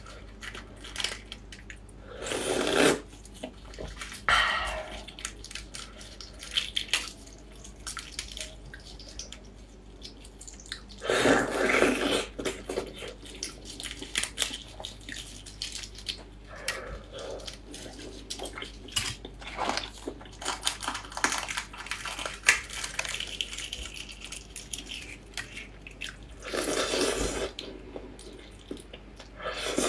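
Close-miked eating of spicy marinated fertilized eggs (活珠子): gloved fingers breaking and peeling the wet eggs, with small crackles, squelches and chewing throughout. There are three louder wet slurps, about two, eleven and twenty-seven seconds in.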